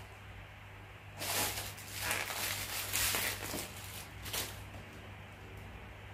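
Clear plastic wrapping rustling and crinkling as a small handbag is pulled out of it, in irregular bursts from about a second in until about four and a half seconds in. A steady low hum runs underneath.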